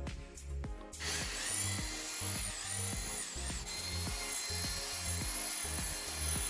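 A power tool starts about a second in and runs steadily with a high whine, over background music with a steady beat.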